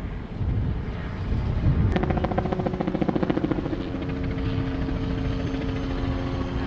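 Helicopter flying nearby: a low rumble, then about two seconds in a rapid rotor chop with a steady engine tone sets in and keeps going.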